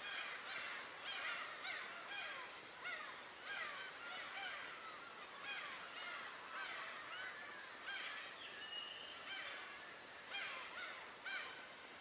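A large flock of birds calling over one another in a dense, continuous chorus of short rising-and-falling calls, with one longer held note a little past the middle.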